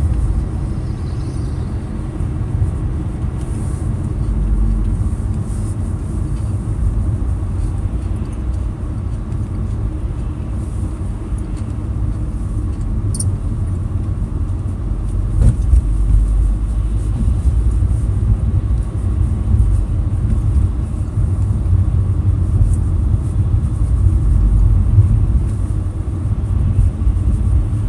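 A car on the move, heard from inside the cabin: a steady low rumble of engine and road noise.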